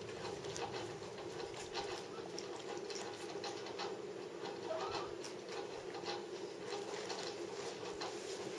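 Dog and jaguar cub play-wrestling on carpet: irregular soft scuffling and light clicks from paws and bodies, over a steady hum.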